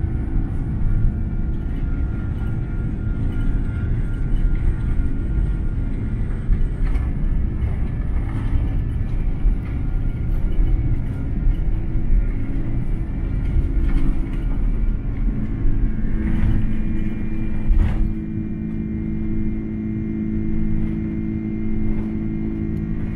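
Cabin sound of an Airbus A330-300's Rolls-Royce Trent 700 engines at takeoff thrust: a loud, steady engine drone with held tones over a heavy rumble from the wheels on the runway. About 18 seconds in there is a short knock, and the low rumble drops away as the aircraft lifts off, leaving the engine drone.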